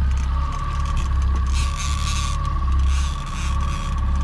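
Boat motor running steadily with a low rumble and a steady whine, and two short bursts of noise over it, about one and a half and three seconds in.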